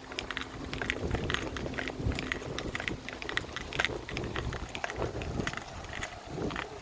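Wind rumbling on the microphone, with a quick, irregular run of light sharp clicks and crackles over it.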